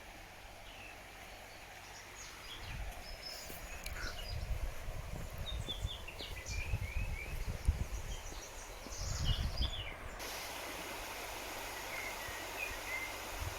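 Small birds chirping and singing, with gusts of wind buffeting the microphone. About ten seconds in, the sound switches abruptly to a steady rushing of flowing river water, with a bird still calling faintly.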